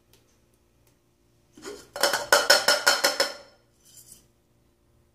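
Stainless steel saucepan and its lid clattering in a quick rattle of about six knocks a second for just over a second, as the pot of rinsed rice is shaken to drain off the last of the water. A short, softer clink follows about a second later.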